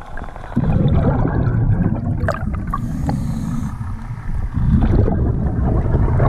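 Underwater rumble of air bubbles and rushing water against the camera, in two long low surges, the second starting a little past the middle, with a brief hiss between them.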